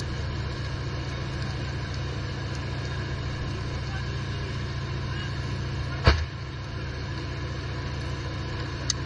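Steady low rumble like an engine running, broken about six seconds in by one loud, sharp gunshot on the battlefield.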